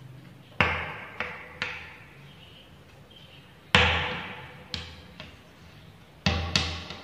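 Chalk knocking against a blackboard while Arabic letters are written: about eight sharp taps in three clusters, each dying away quickly, the loudest about four seconds in.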